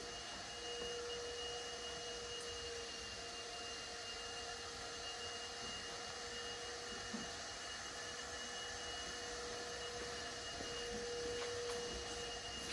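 Steady room tone: a low hiss with a faint, unchanging electrical whine holding two steady pitches.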